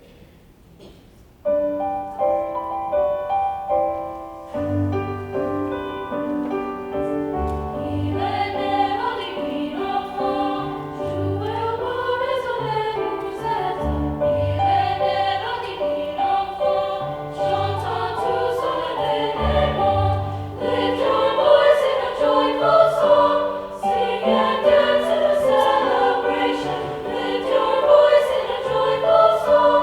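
A French Christmas carol sung as a vocal duet with piano accompaniment. The piano introduction starts about a second and a half in, and the singers' voices, with vibrato, enter about eight seconds in.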